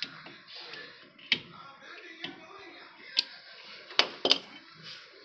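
Irregular sharp metallic clicks and clacks, about six of them with two close together near the end, as new brake shoes and their springs are pressed and seated on the drum-brake backing plate of a TVS King auto rickshaw.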